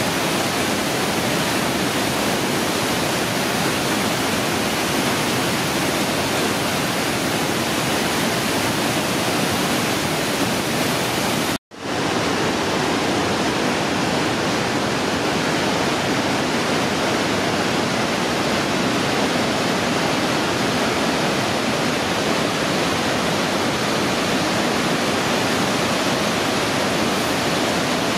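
Whitewater of a creek rushing and cascading over a waterfall into a rock canyon: a loud, steady rush of water. It cuts out for a split second about twelve seconds in, then resumes unchanged.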